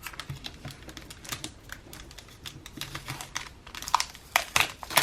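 Packaging being handled and crinkled by hand, a string of short crackles and clicks that gets louder and busier near the end.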